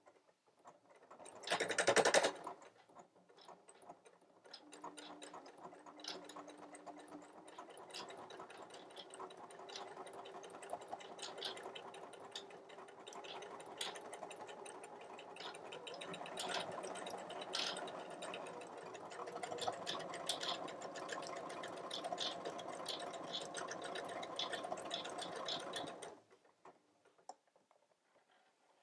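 Computerised sewing machine stitching a decorative flower pattern with a twin needle: a steady motor hum with rapid needle ticking that starts a few seconds in, grows louder in the second half, and stops near the end. A brief loud noise comes about two seconds in, before the stitching starts.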